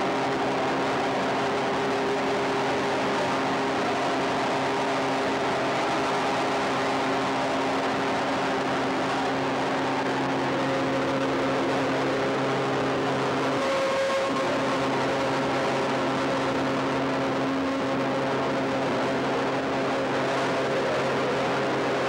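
Steady electronic drone: several held low tones over a thick hiss, with the tones briefly wavering and shifting a little past halfway.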